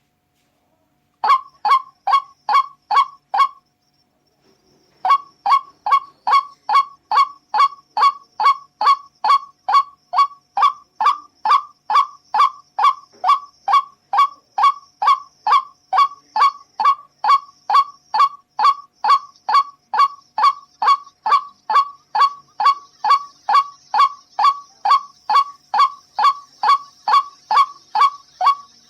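White-breasted waterhen (ruak-ruak) calling: a loud, regular series of harsh, honk-like notes about two a second. A short burst of five notes comes about a second in, then after a brief pause the calls run on without a break.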